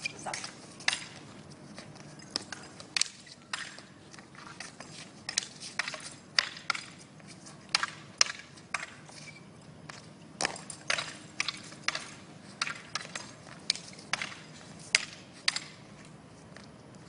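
Weapons clacking together in a wushu sparring set: broadsword and crutch against a spear, sharp strikes at an irregular pace, often two or three in quick succession.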